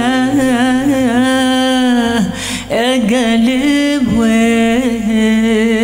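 A woman singing solo into a handheld microphone in long, ornamented held notes with no clear words. There is a short break for breath about two seconds in.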